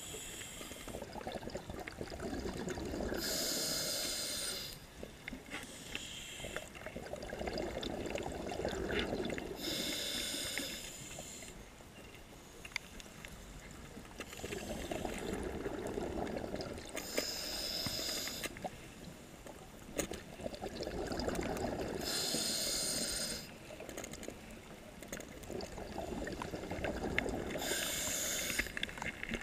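Scuba regulator breathing underwater: a short hiss as air is drawn through the regulator, then a longer bubbling rumble as the exhaled air escapes. The cycle repeats steadily, about five breaths.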